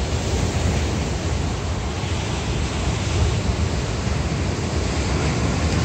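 Falcon Heavy rocket launch rumble heard from about 23 miles away: a steady, low, noisy rumble with no distinct strokes.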